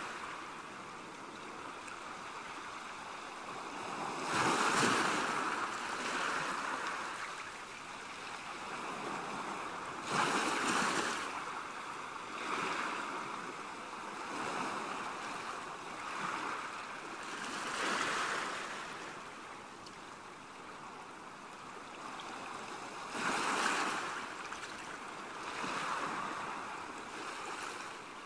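Small sea waves washing in and drawing back over a shore, with a surge of water noise every few seconds.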